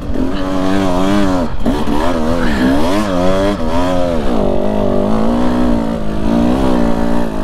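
KTM dirt bike engine revving up and down as the rider works the throttle climbing a rocky, snowy trail, with a brief drop off the throttle about a second and a half in.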